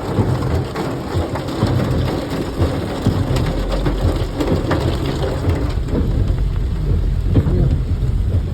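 Heavy rain pouring down hard and steadily, with a dense patter of drops over a constant low rumble.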